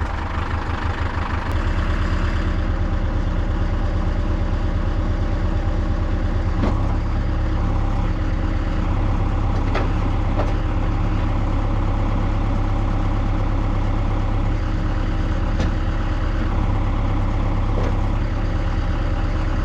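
Tractor engine running steadily just after starting, with a few light knocks from the machine.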